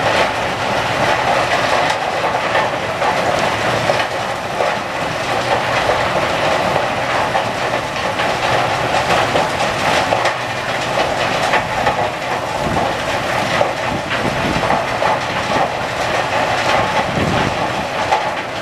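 An aggregate screen tower and its belt conveyor running under load: a steady, loud rattling din of crushed stone moving along the belt and through the screening plant.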